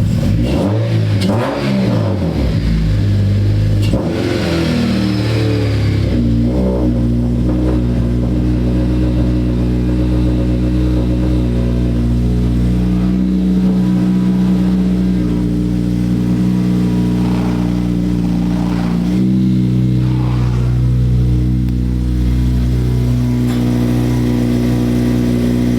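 Car engine running, its revs rising and falling for the first several seconds, then settling to a steady note with a few small shifts in pitch.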